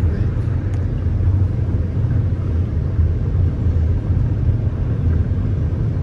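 Steady low rumble of a moving car, heard from inside the cabin while driving at low speed.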